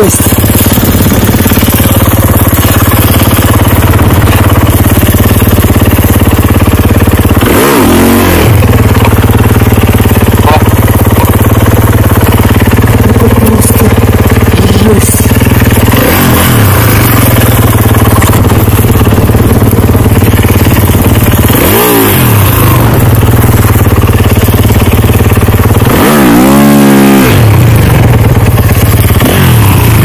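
Snowbike's dirt-bike engine running loud and steady, revved up and back down four times in short bursts, the longest near the end, as the bike is worked loose from deep snow where it is stuck.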